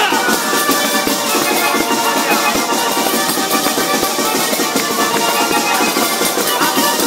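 Loud dance music with a quick, steady beat.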